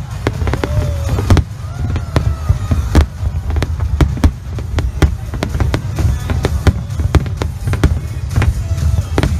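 Fireworks display: aerial shells bursting in quick succession, several sharp bangs a second over a continuous deep rumble.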